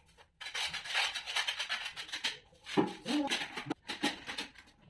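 A tiler's hand tool scraping in a series of short, rough strokes, with a brief pause about two and a half seconds in. Near the end it is scraping mortar in a plastic bucket.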